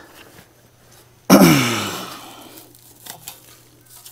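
Mini excavator with an auger attachment: a steady low engine hum, and about a second in a sudden loud grinding burst with a groan falling in pitch that fades over about a second.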